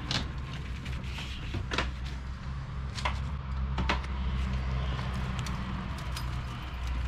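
Rubber door seal being pulled off a VW panel van's door sill and handled, with a few sharp clicks and knocks, over a steady low hum.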